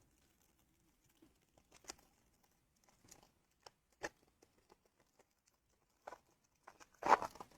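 Scattered crinkles and rustles of a Panini Prizm trading card pack's foil wrapper being torn open and the cards handled, with a louder crinkle about seven seconds in.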